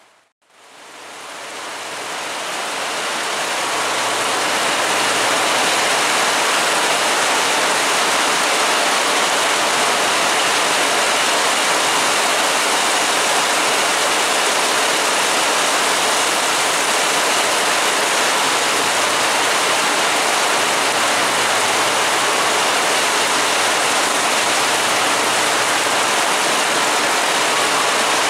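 Heavy downpour of rain: a dense, steady hiss that fades in over the first few seconds.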